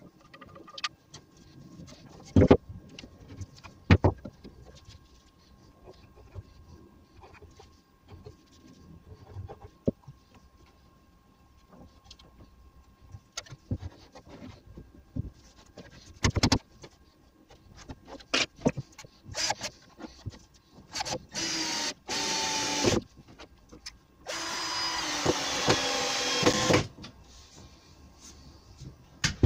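Softwood bracket pieces knocked and shifted on a workbench as the glued joints of a curved-brace gallows bracket are pushed together, with sharp wooden knocks about two and four seconds in. Near the end, two short runs of a small power-tool motor, the second about two and a half seconds long.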